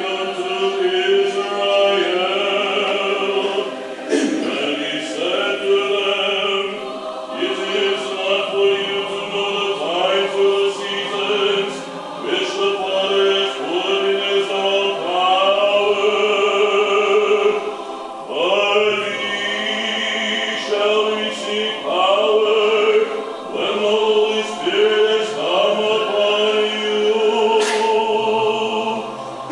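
An Orthodox church choir singing a hymn unaccompanied, in several voice parts, phrase after phrase with short breaks between them.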